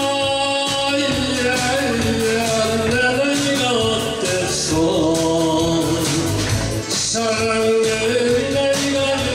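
A man singing into a handheld microphone over musical accompaniment with a steady beat.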